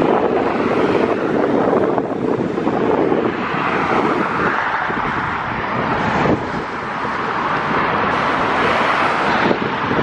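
Jet airliner's engines running, the noise growing brighter from about four seconds in, with gusty wind buffeting the microphone.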